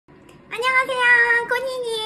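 A woman's voice in a high sing-song, holding long, level notes, starting about half a second in with a short break about a second and a half in.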